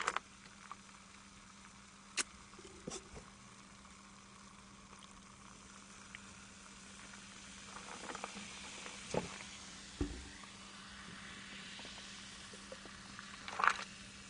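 Cola poured from a plastic bottle into a cup of ice, fizzing with a hiss that swells from about halfway through and lasts several seconds, with a few light knocks of the bottle and ice. A short sip near the end, over a faint steady hum.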